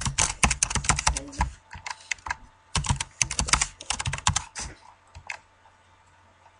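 Typing on a computer keyboard in two quick runs of keystrokes, then a few single key clicks, stopping about five seconds in.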